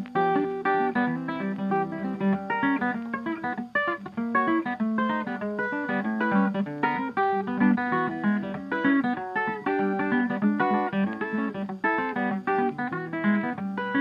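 Background music on acoustic guitar: a quick, continuous run of plucked notes.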